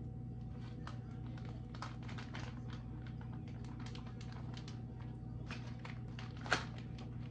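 A plastic food package crinkling and crackling as it is handled and torn open, with a sharper snap about six and a half seconds in. A steady low hum runs underneath.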